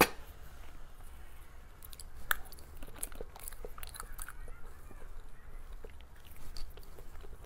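Close-miked eating of cake: sticky, wet chewing and mouth smacks, with sharper biting clicks right at the start and about two seconds in.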